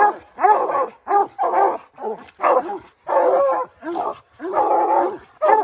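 Three coonhounds, a redbone and two black and tans, barking treed at the foot of a tree: the sign that a raccoon is up it. They give repeated barks, about two a second, with a couple of longer drawn-out bawls. One hound sounds hoarse.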